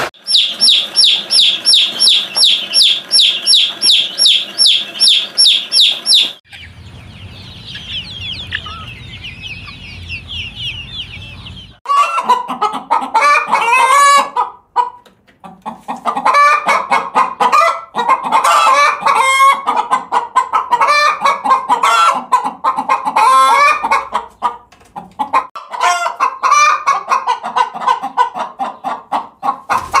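Domestic hens clucking in a dense, steady run of short calls from about twelve seconds in. Before that comes a fast, evenly repeated high chirping, about three a second, that stops after about six seconds. A quieter stretch follows with faint high chirps over a low rumble.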